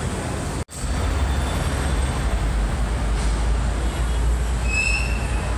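Steady city street traffic noise with a heavy low rumble. It drops out for an instant less than a second in, and a short high squeal sounds about five seconds in.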